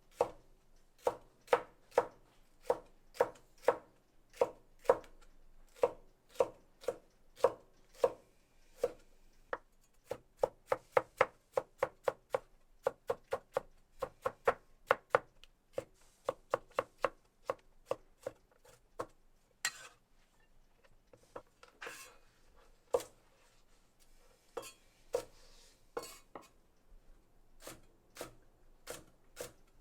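Kitchen knife chopping on a cutting board in steady, even strokes, about two a second, speeding up for a few seconds midway and then slowing to sparser, irregular cuts.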